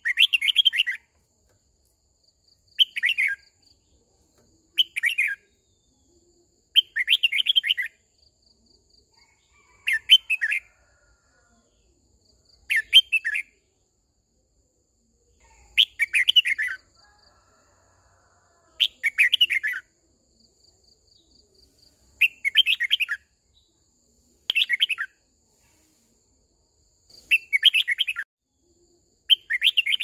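Red-whiskered bulbul singing: about a dozen short, bright phrases, each half a second to a second long, repeated every two to three seconds.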